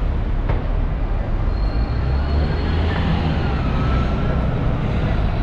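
City street traffic: a steady rumble of passing vehicles, with a couple of brief high-pitched squeals around the middle.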